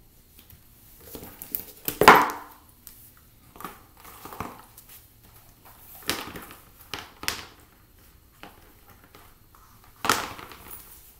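Black leather ballet flats handled and set down on a tile floor: scattered knocks and scuffs, the loudest about two seconds in and another near the end as a shoe is put down.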